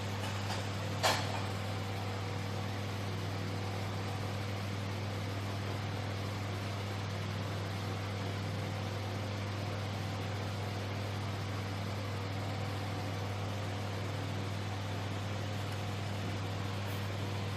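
A steady, even mechanical hum, with one short click about a second in.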